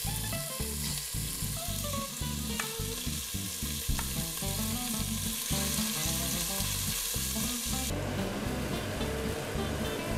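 Beef cubes sizzling as they sear in hot oil in a stainless steel pot, stirred with a spoon. The hiss drops off sharply about eight seconds in.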